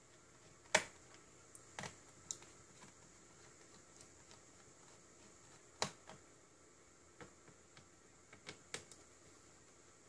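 Sparse light clicks and taps of a small screwdriver and fingers on a Dell Inspiron 1525 laptop's plastic bottom cover as its screws are loosened, the two sharpest just under a second in and about six seconds in.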